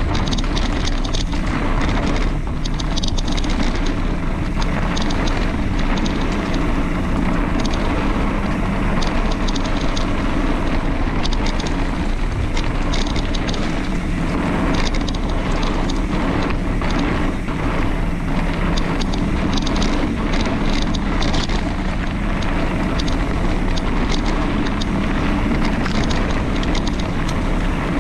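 Wind buffeting the camera microphone during a fast downhill bike ride on a dirt trail. Underneath is a steady rumble from the tyres, with an irregular rattle and clatter as the bike goes over bumps.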